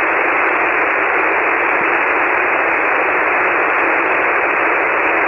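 Steady hiss of band noise from a ham radio receiver on 40-metre SSB, heard through the radio's narrow voice passband, with no station readable above it.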